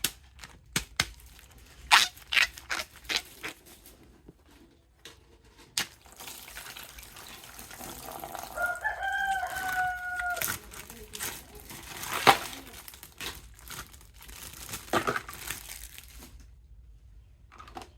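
Sharp clicks, knocks and rustling of plastic toy packaging being handled and opened. About nine seconds in, a long call holds one pitch for nearly two seconds.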